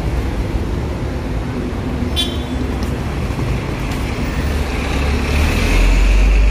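City street traffic, with a steady hum of vehicles; a heavy vehicle passes close near the end with a louder low rumble.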